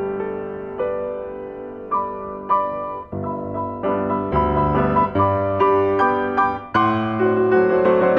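Background piano music: a gentle melody of struck, ringing notes that grows fuller, with lower notes joining, about four seconds in.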